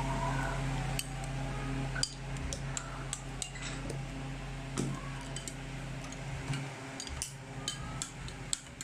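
Metal spoon stirring thick chocolate rice porridge with milk in an enamel bowl, with a dozen or so scattered clinks of the spoon against the bowl. A steady low hum runs underneath.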